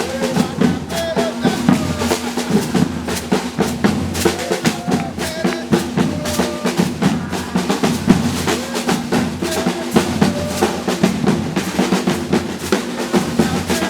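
Brazilian percussion group drumming live: snare drums with rapid rolls over bass drums in a dense, driving rhythm.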